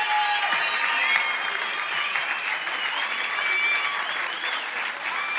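Live audience applauding and cheering, with scattered shouts from the crowd.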